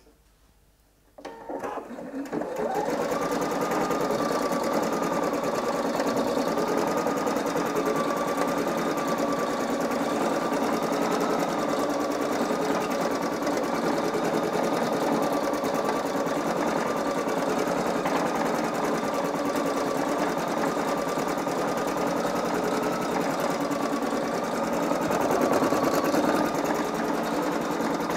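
Singer EM9305 embroidery machine starting up about a second in and building to a steady run as it stitches out an embroidery design, with a thin, slightly wavering whine over the stitching.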